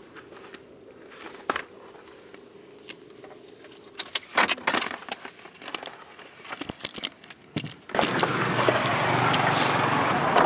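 Metal clips and buckles of a dog harness and leash jangling and clicking as they are handled, over a steady low hum. About eight seconds in, this gives way to louder steady street traffic noise.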